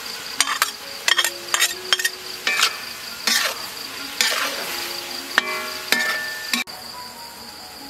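Metal spatula scraping and clinking against a wok as ground pork, beans and green onion are stir-fried, with the food sizzling. Irregular sharp scrapes and taps come every half second or so. A steady high insect trill runs behind and cuts off abruptly near the end.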